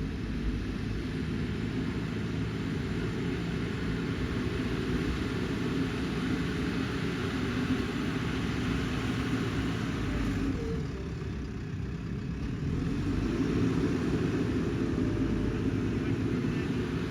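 Diesel engine of a heavy machine running steadily. It eases off a little about two-thirds of the way through, then comes up louder again.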